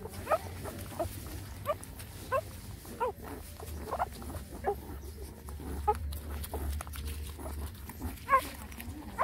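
Nursing puppies giving many short, high squeaks and whimpers, one or two a second, while they suckle from their mother.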